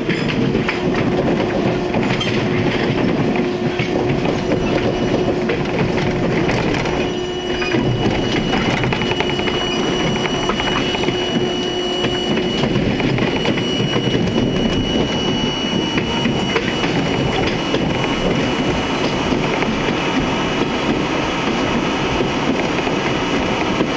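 R32 subway car running along the track, heard from inside at the front window: a steady rumble of wheels on rail with frequent clicks over rail joints. A steady high whine comes in about a third of the way through.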